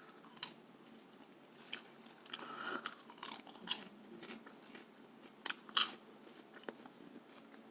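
A person chewing a crunchy snack, with scattered sharp crunches and irregular pauses.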